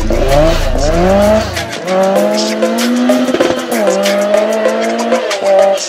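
Rally car engine revving hard, rising in steps through the gears, then held at high revs before easing near the end, mixed with music that has a fast ticking beat.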